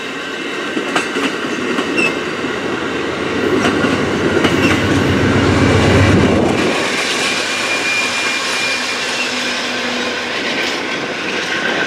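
Amtrak passenger train passing: the coaches' wheels click over the rail joints, then the rear Amtrak P42DC diesel locomotive goes by with a swell of low engine rumble that peaks about six seconds in and drops away suddenly. Lighter, higher rail noise follows as the train pulls away.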